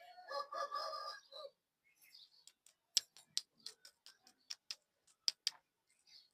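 A short pitched squeak, then a quick run of sharp clicks and taps, typical of plastic-wrapped lollipops and their packaging being handled.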